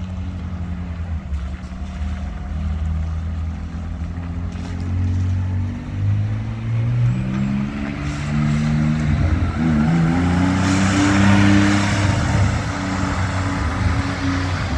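A historic car's engine accelerating, its pitch climbing, then dipping briefly about nine and a half seconds in at a gear change before rising again. It is loudest a little after that, as the car draws nearest.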